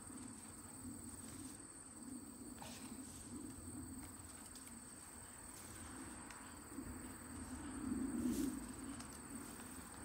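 Honey bee swarm buzzing, a low hum that wavers and swells loudest about eight seconds in, over a steady high-pitched insect trill.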